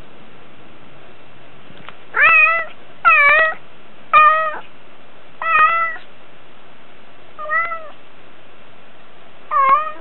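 Domestic cat meowing six times, each a short call that rises and falls in pitch, starting about two seconds in with the fifth the faintest. These are lonely meows, which the owner takes as the cat crying from loneliness when nobody is with it.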